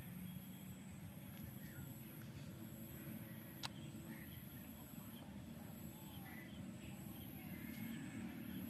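Faint outdoor background with scattered bird chirps over a steady low noise. A single sharp click sounds about three and a half seconds in.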